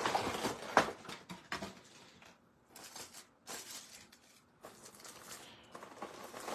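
Handling of an action figure and its packaging: irregular rustling, light knocks and clicks, loudest in the first second or so.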